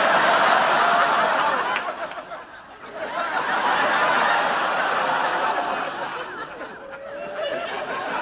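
Studio audience laughing, a long wave of laughter that dies down about two seconds in and swells up again about a second later.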